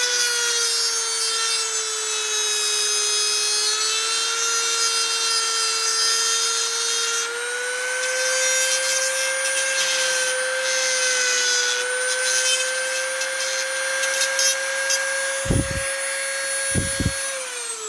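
Dremel rotary tool running at high speed with a steady whine, grinding down the rakers and cutters of a Husqvarna C85 chainsaw chain to turn it into a milling chain. The pitch sags slightly under load, two short knocks come near the end, and then the tool is switched off, its whine falling away as it winds down.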